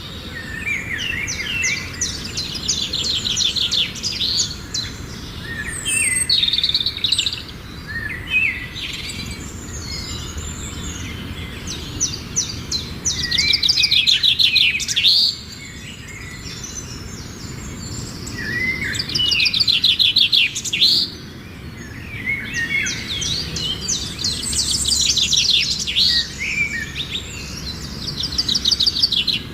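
Birds singing: repeated phrases of fast trills and chirps, each a couple of seconds long, with short pauses between them.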